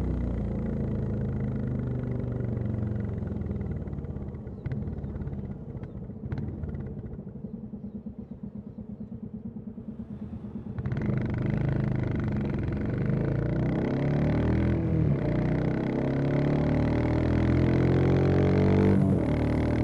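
Royal Enfield Classic 350's single-cylinder engine and exhaust, easing off to a slow, even thumping at low revs. About eleven seconds in it opens up and pulls away with the pitch climbing, briefly dropping at a gear change near the end before rising again.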